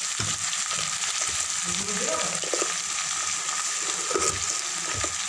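Onion, tomato and spice masala sizzling steadily in hot oil in a metal pan, with a metal ladle stirring and scraping against the pan now and then.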